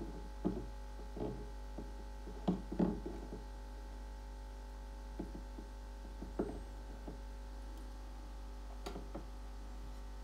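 A steady low hum under scattered soft knocks and rustles of fingers handling plants on a rock pillar, the busiest in the first three seconds and sparser later.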